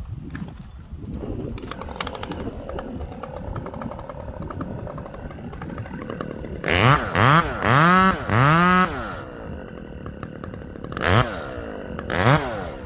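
Chainsaw idling with a ticking rattle, then revved hard in short throttle blips: four in quick succession about two-thirds of the way in and two more near the end, each rising and falling in pitch.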